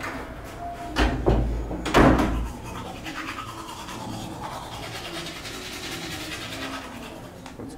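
A toothbrush scrubbing teeth with quick back-and-forth strokes. A few loud knocks and thuds come in the first couple of seconds.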